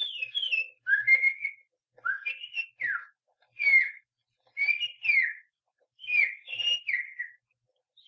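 Baltimore oriole song: a series of short phrases of clear, slurred whistled notes, two or three notes each, with brief pauses between phrases.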